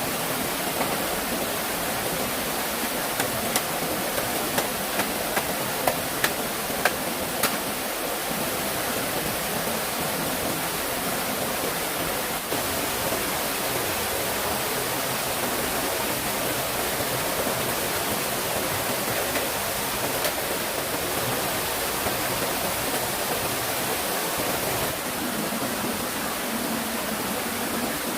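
Steady rushing of flowing stream water. Between about three and seven seconds in, a run of sharp taps or knocks sounds above it, roughly two a second.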